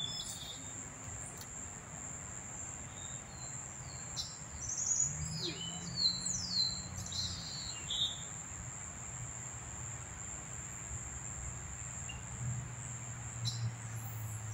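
A steady high insect drone, like crickets, with birds calling over it: a run of short chirps and falling whistles from about four to eight seconds in, and a few more near the end. A faint low hum sits underneath.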